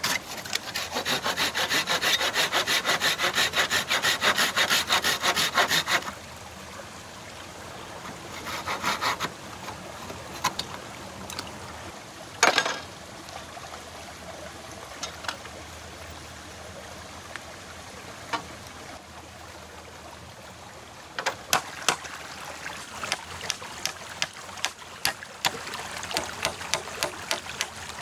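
Hand saw cutting wood in quick, rhythmic back-and-forth strokes for about six seconds, then a shorter burst of sawing. A sharp knock follows, then scattered light taps and clicks, with a run of quick ticks near the end.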